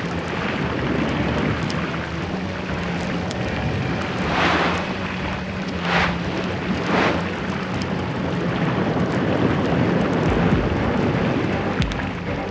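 Steady underwater rushing of churning water with a low steady hum under it, and three short whooshes around the middle.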